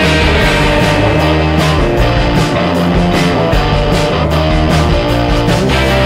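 Background rock music with guitar over a steady drum beat.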